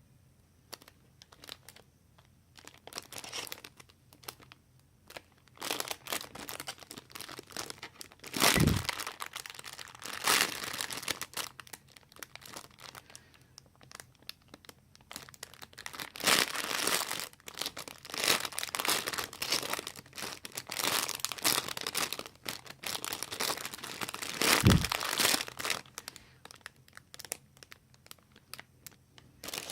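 Packaging crinkling and rustling in irregular bursts as it is handled. Two dull thumps come about a third of the way in and again about five seconds before the end.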